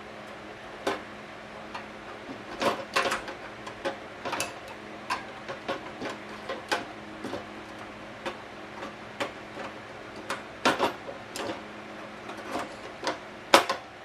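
Irregular sharp clicks and light knocks, some in quick clusters, from a portable gas stove and its parts being handled, over a faint steady hum. The loudest knock comes near the end.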